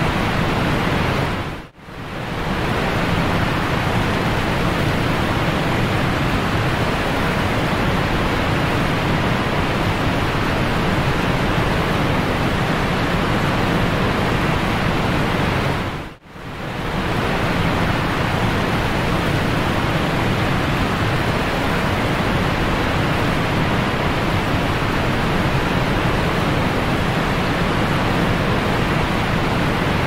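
Steady, full rushing of a cascading waterfall pouring over boulders. It fades out and back in briefly twice, about two seconds in and about sixteen seconds in.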